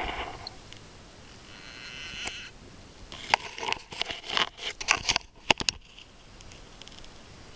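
A frog caught by a garter snake gives a short, high squeal about two seconds in. A rapid run of sharp clicks and crackles follows for about three seconds.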